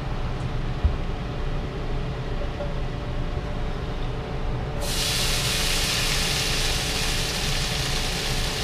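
Diced char siu pork hitting hot oil in a steel wok: a loud, steady sizzle starts suddenly about five seconds in as the pork begins to sear. Before it there is only a low steady hum, with a single thump about a second in.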